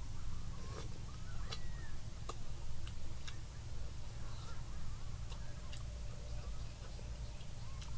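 Close-up chewing and eating of fried eel, heard as irregular sharp crunchy clicks a few times a second over a low steady hum.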